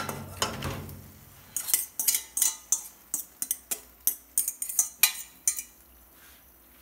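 Metal fork and utensils clinking against a metal colander and cooking pot as cooked instant noodles are tipped in and stirred: after a soft slide of noodles, a quick irregular run of sharp clinks, about four a second, that stops near the end.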